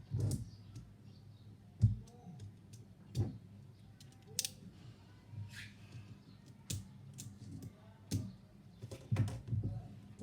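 Hands handling manga books and their packaging: irregular taps, knocks and clicks with a few short rustles, over a faint steady low hum.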